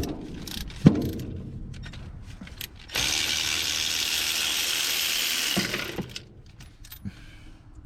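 Socket ratchet clicking and tool knocks while a spark plug is worked out of a GM LS 4.8 V8, with a sharp knock about a second in. About three seconds in comes a steady hissing noise lasting about two and a half seconds.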